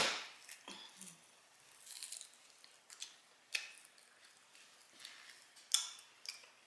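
Close-miked chewing and lip smacking on meat, in irregular short wet clicks and crunches, with a louder one near the end.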